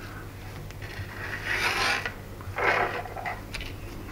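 Two short rubbing, scraping sounds, about a second and a half in and again near three seconds, as gloved hands work the metal crankcase and cylinder of a small two-stroke glow engine. A few light clicks of the parts being handled come around them.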